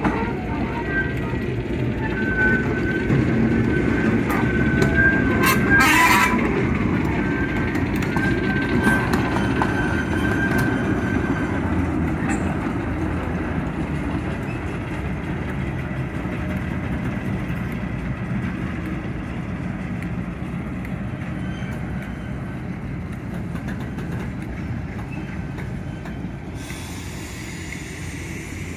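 A Class 08 diesel shunter and a rake of goods vans moving slowly past: a low diesel rumble mixed with the wagon wheels running on the rails. A thin steady wheel squeal comes and goes through the first third, with a sharp clank about six seconds in, and the sound slowly grows fainter over the second half.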